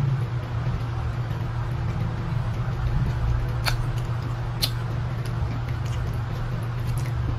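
Steady low hum with a couple of short, sharp little clicks about halfway through: eating sounds as tilapia is picked apart by hand and chewed.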